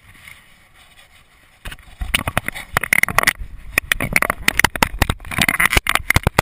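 Loud, dense crackling, rubbing and knocking on the camera's microphone, starting about two seconds in after a fairly quiet opening: handling noise from the camera being moved.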